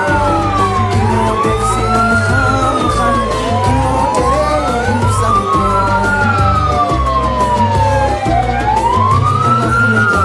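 Escort-vehicle sirens wailing: at least two, each rising and falling slowly over a couple of seconds, out of step with each other, over a low steady drone.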